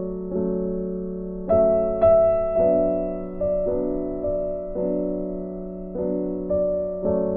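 Background piano music: a slow, gentle melody of single notes that strike and fade, about one or two a second.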